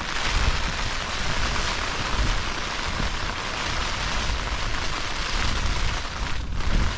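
Heavy rain drumming steadily on a tent's fabric, heard from inside the tent, with a low rumble underneath. It eases for a moment near the end.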